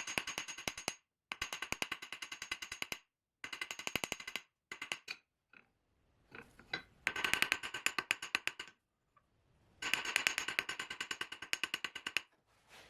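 Small hammer striking steel tie wire on an anvil in quick runs of light, ringing blows, several a second, drawing the wire's end out to a point. There are six runs of blows with short pauses between them, where the wire is turned to work the next side.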